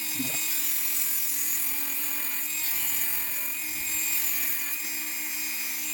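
Small high-speed power tool running at a steady pitch while cutting through a slingshot band clip.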